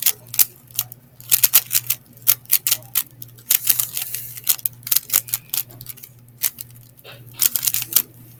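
Speed cube's plastic layers clicking and clacking in quick, irregular runs as it is turned rapidly during a solve, over a steady low hum.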